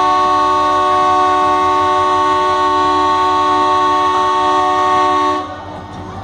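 Diesel locomotive's horn sounding one long steady blast of several tones at once, cutting off about five and a half seconds in.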